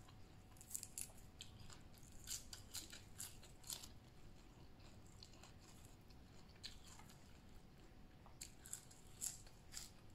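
A person chewing crisp raw vegetables and leafy greens close to the microphone: a run of short crunches in the first few seconds, a quieter pause, then more crunches near the end.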